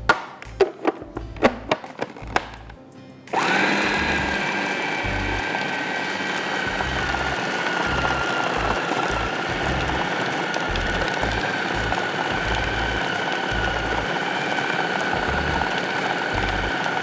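A few clicks and knocks, then about three seconds in an electric food processor starts up and runs steadily, grinding the spiced mutton mince for galouti kebabs into a fine paste.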